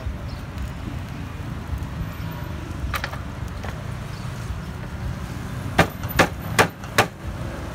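Steady low street rumble, with four sharp chopping knocks on a wooden chopping block in quick succession near the end, and a single knock a few seconds earlier.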